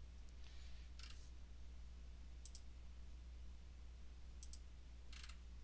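Computer mouse clicking: a handful of sharp clicks, two of them quick double clicks, over a faint steady low hum.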